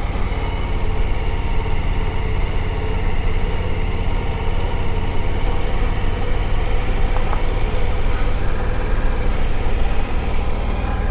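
Suzuki V-Strom adventure motorcycle's V-twin engine running steadily while riding a rough gravel road.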